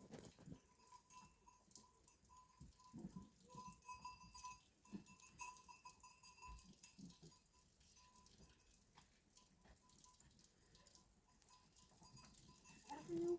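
Near silence with faint scattered knocks and a faint steady high tone, then one short animal call just before the end.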